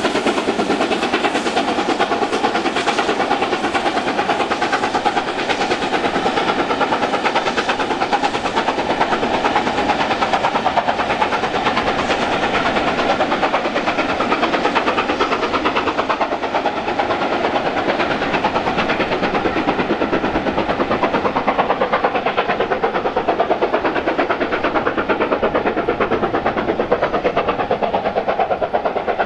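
BR Standard Class 7 'Britannia' Pacific steam locomotive 70000 working a train hard, its exhaust a fast, steady stream of beats.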